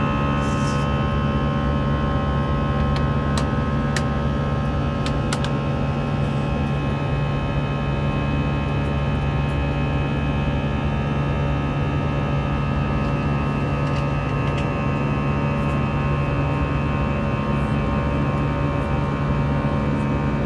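Steady drone of a jet airliner's engines heard inside the cabin during the climb after takeoff: a low rumble with several steady tones over it. A few light clicks come between about three and six seconds in.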